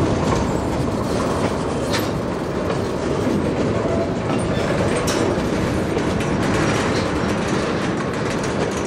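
Freight train rolling past: an EMD GP11 diesel locomotive running steadily with a train of covered hopper cars, wheels clicking over rail joints.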